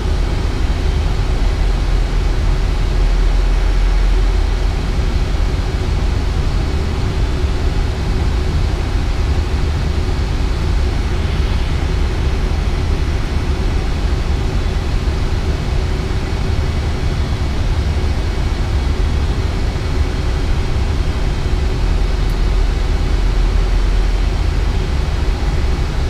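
Steady rushing airflow and deep low rumble on the flight deck of an Airbus A320 in flight on approach, unchanging throughout.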